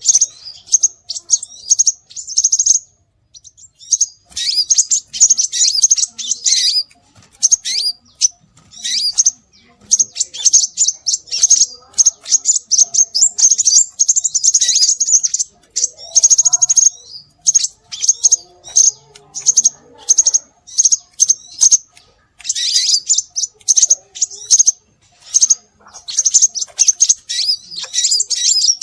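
Scarlet minivet (sepah raja) calls played as a bird lure: loud, rapid high-pitched chirping in runs of one to three seconds with short breaks between them.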